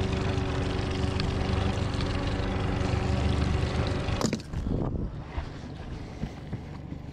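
Boat motor running steadily under way, with wind and water rush, cutting off suddenly about four seconds in.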